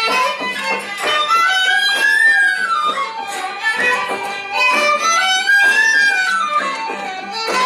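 A traditional Irish jig played live by a fiddle-led band, with a small wind instrument, a strummed acoustic guitar and a hand frame drum. The melody climbs and falls in repeating phrases about every two seconds.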